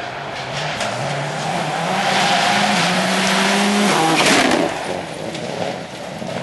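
Rally car on a dirt forest stage: its engine climbs steadily through the revs as it approaches, then passes close by about four seconds in with a loud rush of tyre and loose-surface noise. After that its engine note drops as it pulls away.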